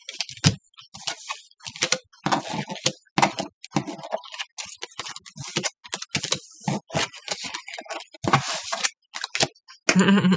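Oracle cards being shuffled, flicked and dealt onto a wooden desk: a rapid, irregular run of snaps, slaps and clicks.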